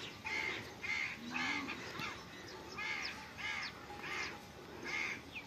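Crows cawing over and over, short harsh caws coming about two a second.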